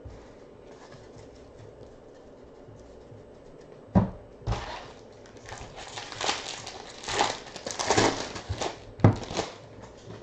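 Foil trading-card pack wrapper being torn open and crinkled by hand: a sharp crack about four seconds in, then several seconds of crinkling and tearing.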